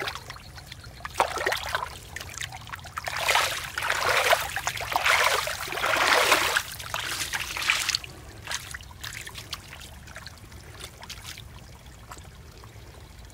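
Hands splashing and sloshing through shallow muddy water, groping in the mud for fish. The splashing is heaviest for several seconds in the middle, then eases to lighter, scattered sloshes.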